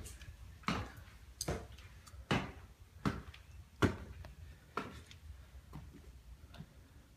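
Footsteps climbing stairs, a steady tread of about one step every three-quarters of a second, spacing out slightly near the end.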